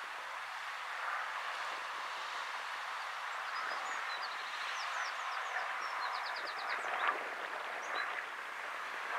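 Outdoor nature ambience: a steady hiss with short, high bird chirps scattered through it, including a quick run of chirps about halfway through.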